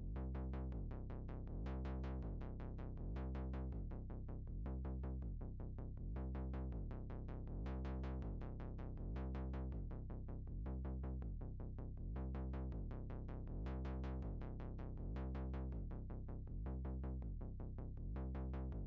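Background electronic music: a dark synth bed with a low pulsing bass and a steady drum-machine beat of about three strokes a second.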